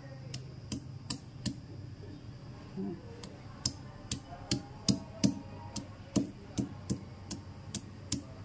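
Peeled garlic cloves being crushed with a hand-held pounding block on a stone countertop: a string of sharp knocks, about two or three a second, irregularly spaced.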